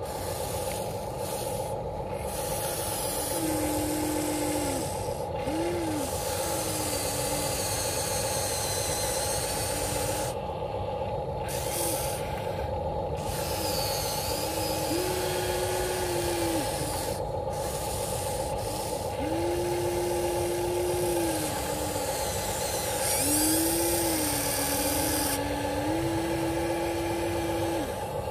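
Electric motors of a HuiNa 1593 radio-controlled excavator whining in short runs of a second or two, the pitch stepping up and down as the arm, bucket and swing are worked, over a steady hum and the scrape of the bucket in dirt.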